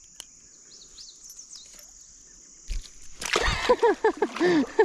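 Steady high-pitched insect buzzing with a few bird chirps, a dull thump about two and a half seconds in, then loud bursts of laughter, quick rising-and-falling syllables, from about three seconds on.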